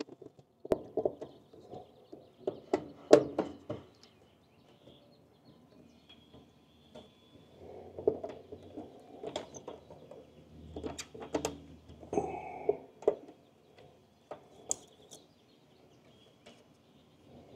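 Scattered clicks, taps and rustles of hands wiring a new contactor in an air-conditioning condensing unit's control panel, as wires are handled and pushed onto the contactor's terminals. The sharpest clicks come about three seconds in and again between about nine and thirteen seconds in.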